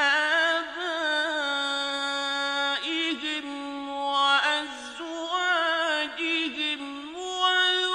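A male reciter's solo voice chanting Quran recitation in the melodic mujawwad style: long held notes, ornamented and wavering in pitch, with brief dips and breaths between phrases.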